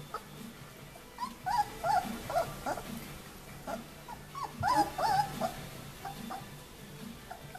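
Several 19-day-old White Swiss Shepherd puppies whimpering and squealing in short, high-pitched calls, in two bursts: one about a second in and another near the middle.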